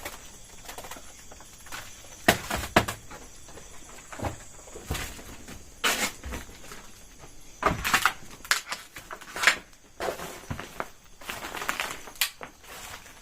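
Footsteps and scuffs on a debris-strewn floor: irregular knocks, clicks and crunches, with the sharpest a couple of seconds in and again near the middle.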